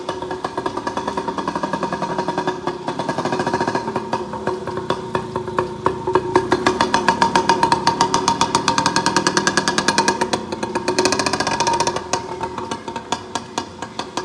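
Small single-cylinder engine of a kids' dirt bike running with a rapid, even exhaust pulse. It grows louder as the bike rides close past, then fades a little near the end.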